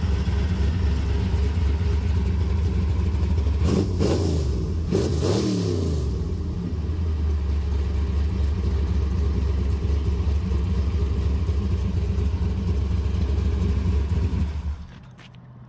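Plymouth 451 stroker big-block V8 idling with a steady lope, revved twice in quick succession about four seconds in, then shut off, cutting out suddenly near the end.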